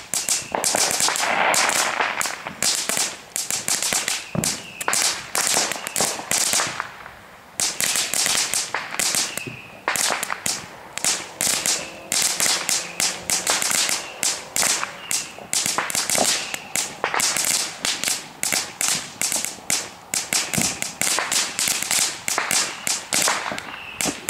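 Small ground firework burning and crackling, a steady run of sharp cracks and pops several times a second, with a brief hiss in the first couple of seconds.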